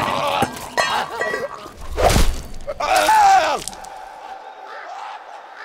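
A man's high, wavering screams of pain, with a sudden loud impact about two seconds in. The screaming breaks off just before the four-second mark, leaving a low steady ambient hum.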